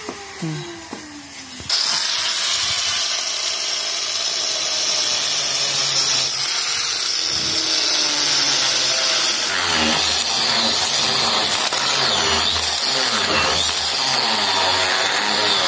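Handheld angle grinder with a core bit cutting a round hole into a stone slab. It starts suddenly about two seconds in and runs as a steady, loud grinding whine. From about ten seconds in the sound turns rougher and pulses as the bit bites deeper.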